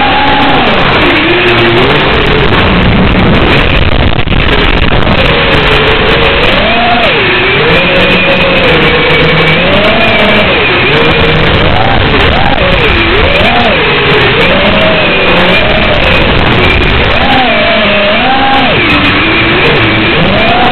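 FPV quadcopter's brushless motors and propellers whining over a loud rushing noise, the pitch gliding up and down continually with throttle changes as it flies.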